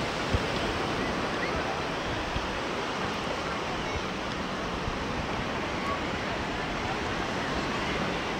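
Sea surf washing onto a beach, a steady rush of noise without breaks.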